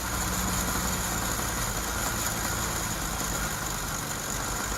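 Car engine idling with a fast, steady ticking and knocking.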